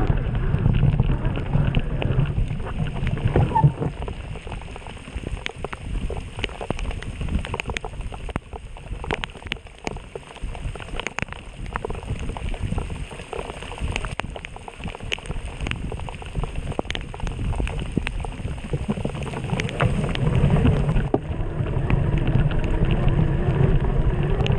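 Mountain bike ride in the rain: wind rumbling on the microphone, with many scattered sharp clicks and rattles. The rumble eases in the middle and comes back strongly a few seconds before the end.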